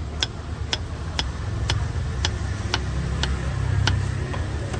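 Knife slicing a cucumber on a wooden cutting board: sharp, evenly spaced taps about twice a second, over a steady low rumble.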